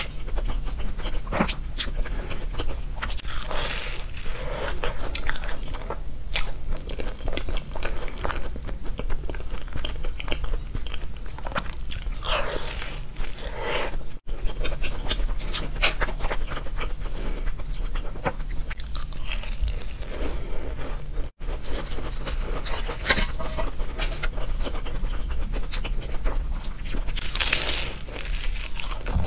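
Close-miked biting and chewing of egg tarts topped with blueberry jam, with dense crisp crackling from the flaky pastry crust.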